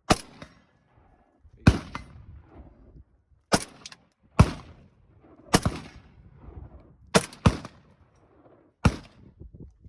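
Semi-automatic rifle fired shot by shot: about eight sharp shots at uneven intervals, two of them close together near the end, each followed by a short echo.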